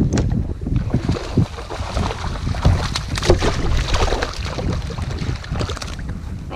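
Wind buffeting the camera microphone and water slapping against a kayak hull, mixed with short knocks and rattles from a fishing rod and reel being worked.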